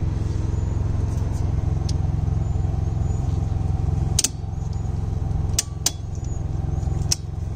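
Double-pole circuit breakers snapping on in a home breaker panel: four sharp clicks, one about four seconds in, two close together around five and a half seconds, and one about seven seconds in. Under them runs the steady engine hum of the still-running Westinghouse iGen 4500 portable generator.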